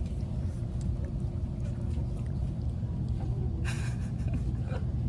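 Steady low rumble of a road vehicle on the move, with a short burst of noise about three and a half seconds in.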